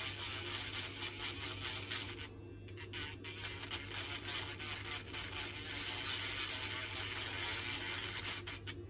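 Small handheld grinding pen running, its bit scraping a dirty hairdryer switch contact clean, with a short pause about two seconds in and stopping near the end.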